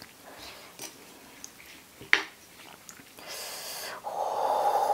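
Metal spoon clicking and scraping against a stone mortar while scooping chili dipping sauce: a few light clinks, then a louder, longer rushing sound near the end.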